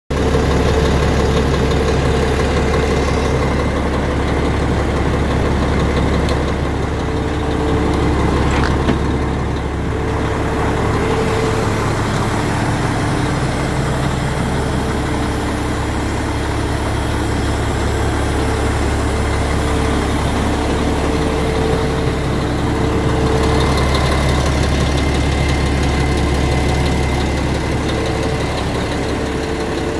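Renault Magnum AE440 truck's diesel engine idling steadily, with one short click about nine seconds in.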